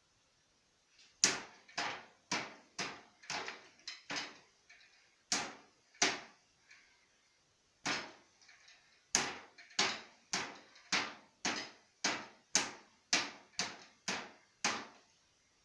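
Punches landing on water bottles: about twenty sharp hits in quick, uneven runs, with a pause of nearly two seconds midway.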